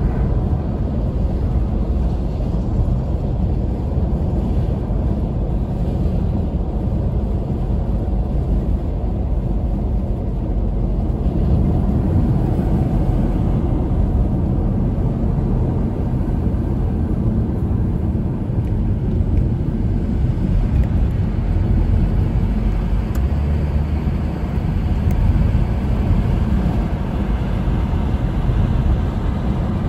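Steady, mostly low-pitched road noise of a car driving at highway speed, tyres and wind on the road.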